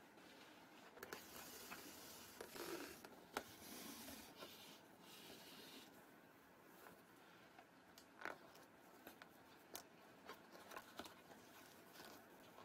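Faint rustling and scattered soft clicks of a flat shoelace being threaded through the eyelets of a leather sneaker and pulled through.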